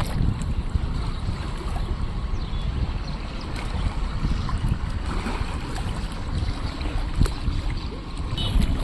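Strong wind rumbling over the microphone, with choppy river waves splashing.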